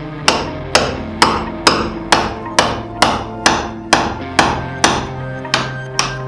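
Hammer blows struck at an even pace, about thirteen sharp strikes at roughly two a second, each with a short ring.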